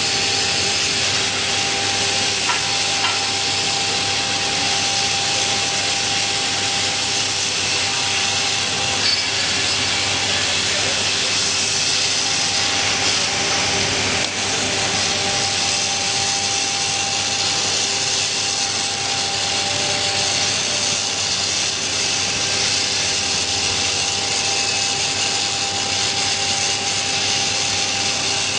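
Electric arc welding on a pipe: the arc crackles and sizzles steadily and without a break, with a steady hum underneath.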